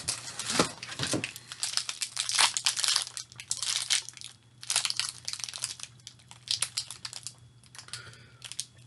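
Plastic snack wrappers crinkling and crackling in irregular bursts as they are handled and rummaged through.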